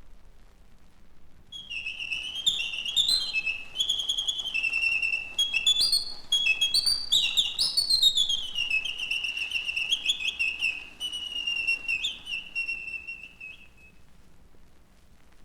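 Mechanical singing bird (a clockwork bird automaton) whistling a warbling song of chirps, trills and rising and falling glides. It starts about a second and a half in and stops shortly before the end.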